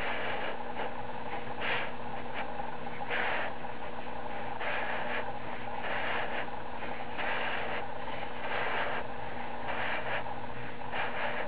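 Hand-turned lubrication-chart dial rubbing and scraping in short strokes, about one every second or so, over a steady background hum.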